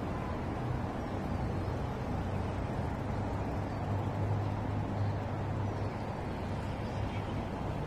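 Steady outdoor rumble of city road traffic, with a low hum that swells a little about halfway through.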